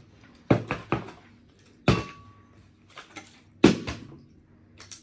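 A series of about six sharp knocks and clatters of hard objects striking a hard surface, irregularly spaced; one, about two seconds in, is followed by a brief ringing tone.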